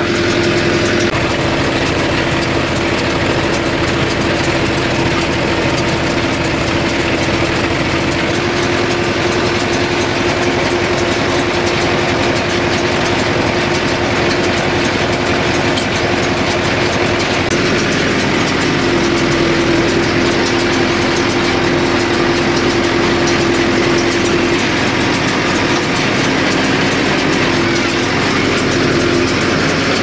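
Mahindra Yuvo 575 tractor's four-cylinder diesel engine running steadily under load, driving a PTO-powered straw baler whose mechanism runs along with it. It is a loud, even machine drone with a steady hum, and a second lower hum joins about two-thirds of the way through.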